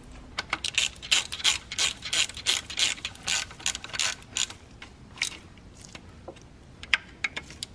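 Hand ratchet wrench clicking in quick runs as a bolt is turned down during engine reassembly. A few single clicks follow about five and seven seconds in.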